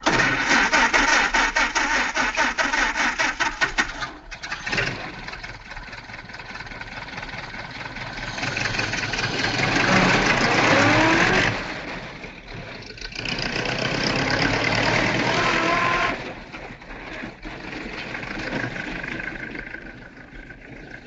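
Ford Model A's four-cylinder engine starting with a rapid, even pulsing, then pulling away, revving up through the gears in three rising swells with breaks between them. It fades away at the end.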